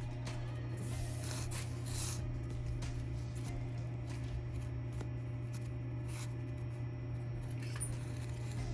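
Hands packing and scraping loose casting sand into a cup around a die punch: scattered short gritty scrapes and rubs over a steady low hum.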